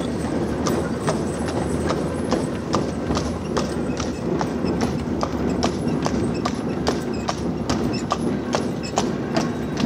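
Hooves of a tram horse clip-clopping on the road as it walks at a steady pace pulling the horse tram, about two to three hoof strikes a second, over a steady low rumble.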